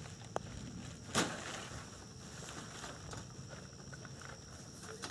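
Ripe tomatoes being set down inside a wire-mesh box trap as bait: a small click, then a louder knock a little over a second in, as they land on the trap's metal pressure plate. A steady high insect trill runs underneath.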